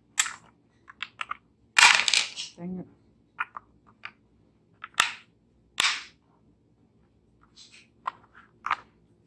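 AAA batteries being pressed and fumbled into the plastic battery compartment of a digital kitchen scale: scattered clicks and snaps, with two sharp snaps about five and six seconds in.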